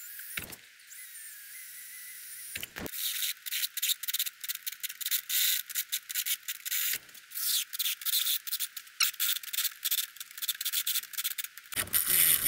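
Cordless drill boring into the steel mounting bracket of a C7 Corvette seat. The bit grinds and squeaks against the metal in short irregular bursts from about three seconds in.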